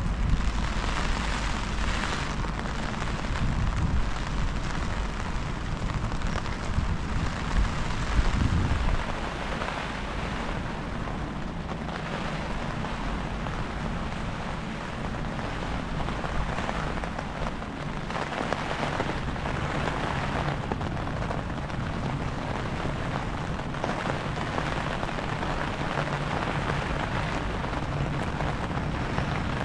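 Wind gusting across the microphone with rain falling. The low buffeting rumble eases about nine seconds in, leaving a steady hiss of rain.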